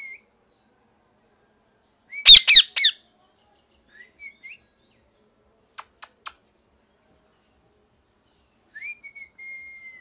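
Indian ringneck parakeet calling: short soft whistles, broken about two seconds in by a burst of three loud calls. Three quick clicks come a few seconds later, and near the end there is a whistle that slurs up, then holds level.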